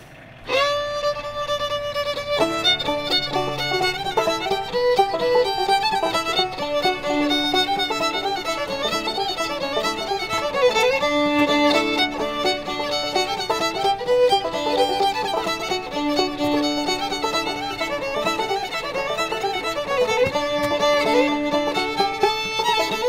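Background music led by a fiddle, opening on a long held note before moving into a quick melody.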